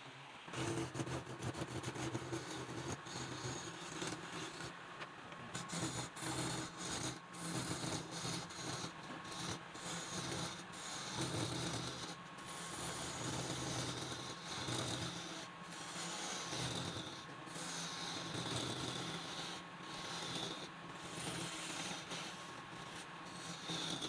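Wood lathe running with a turning tool scraping against the spinning workpiece, the sound swelling and easing unevenly under a steady motor hum.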